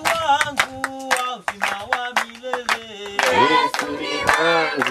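A congregation clapping along to an unaccompanied Swahili hymn, about three to four claps a second. Between sung lines a few voices hold soft notes, and the full group singing comes back in a little past three seconds.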